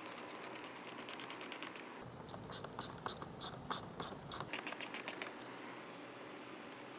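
Hand ratcheting screwdriver clicking while a screw is driven into the plastic grille frame of a bumper cover: a fast, even run of about eight clicks a second, then slower, uneven clicks that stop about five seconds in.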